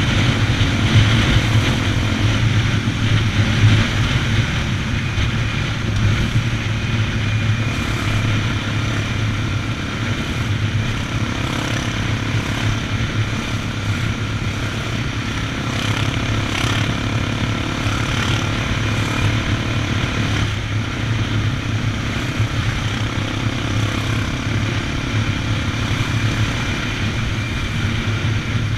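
Honda XR 250 Tornado's single-cylinder four-stroke engine running at a steady cruising pace, with wind noise over it.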